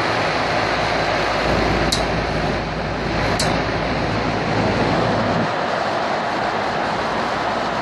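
Steady rushing noise, with two brief high squeaks about two and three and a half seconds in.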